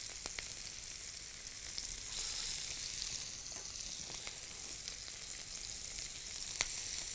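Hot oil sizzling steadily in a frying pan as thick rounds of potato and raw minced-meat balls fry, a little louder from about two seconds in, with a couple of sharp pops of spitting oil.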